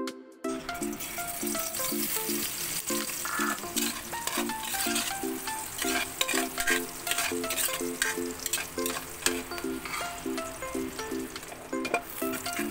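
Food sizzling as it fries in a pan, starting about half a second in, with frequent clicks and scrapes of a utensil stirring it. A light repeating melody of background music plays underneath.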